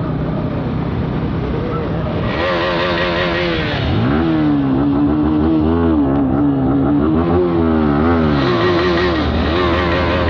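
Single-cylinder motorcycle engine idling and being revved again and again, its pitch rising and falling in short blips; it gets louder from about four seconds in.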